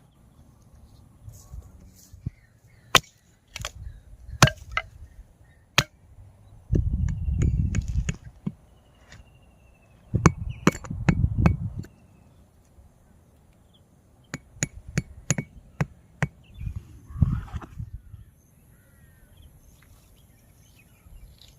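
Wood being knocked and snapped: irregular sharp knocks, some in quick clusters, with a few stretches of low rumbling noise.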